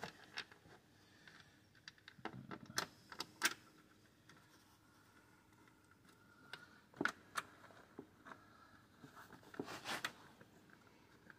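Scattered small clicks, taps and light rattles of hands handling a plastic engine cover and small fasteners, in irregular clusters with quiet gaps between.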